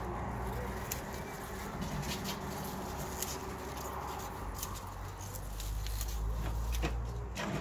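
Pea vines rustling, with scattered small clicks and snaps, as hands pick green pods off the plants. A low rumble underneath grows stronger after about five seconds.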